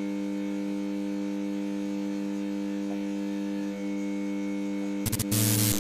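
Steady electrical hum, like the buzz of a neon sign, with a few crackling clicks about five seconds in and a loud burst of static just before the end.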